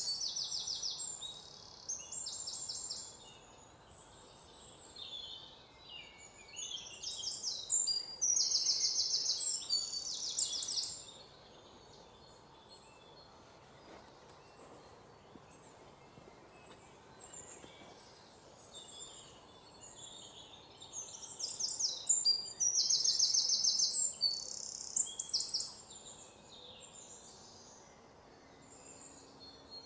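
Small birds chirping and singing in quick high trills, in bursts: near the start, about a third of the way in, and again about three quarters through, over a faint steady hiss.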